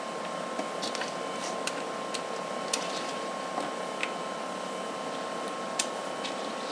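A few faint, short clicks and taps as small rubber toy-vehicle erasers and their plastic parts are handled and set down on a desk, over a steady hiss with a thin constant tone.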